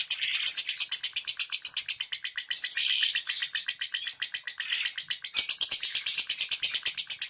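Lovebird singing a long, rapid ticking trill ('ngetik'): sharp, high chips at about ten a second. The trill eases into softer, more varied notes about two seconds in, then comes back at full strength near the end.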